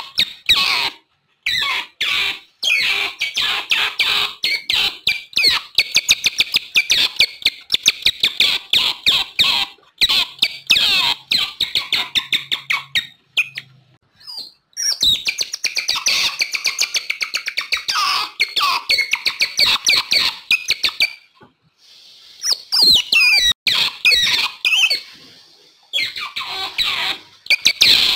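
Otters calling: fast runs of high-pitched chirps and squeaks, broken by a few short pauses.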